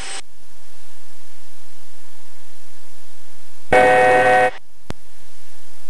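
Steady cabin noise of the jet in flight, broken about four seconds in by a buzzing cockpit aural alert tone lasting under a second, then a single click.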